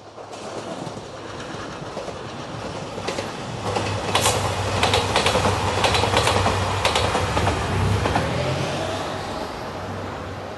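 JR Shikoku 2700 series diesel railcar train passing close by: diesel engines running under a steady rush of train noise, with wheels clicking over rail joints as it goes past. It grows louder, then fades as it draws away, with a faint rising engine note near the end.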